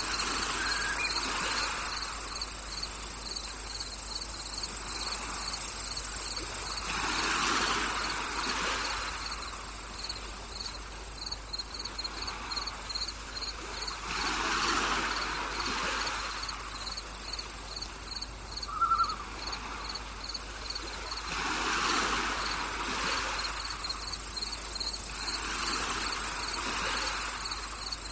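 Crickets chirping in a fast, steady rhythm over a high, continuous insect drone. A soft rushing sound swells and fades about every seven seconds, and a single short chirp sounds a little past halfway.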